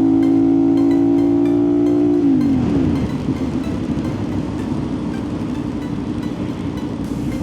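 CFMOTO 450SS parallel-twin engine holding steady revs, then the revs falling away about two seconds in, followed by lower, rougher running under a steady rush of wind and wet-road noise.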